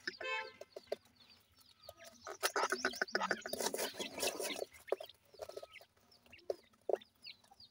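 Black francolins clucking and calling in short notes while feeding, with scattered sharp taps of beaks pecking food from a hand. The calls are busiest in the middle.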